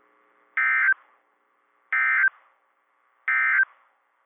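Emergency Alert System end-of-message signal: three short bursts of warbling SAME data tones, a little over a second apart, marking the end of the alert.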